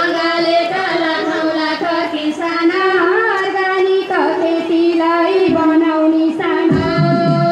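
Women's voices singing a Nepali Teej song, a high-pitched melody over a steadily held note. A low rhythmic accompaniment comes in near the end.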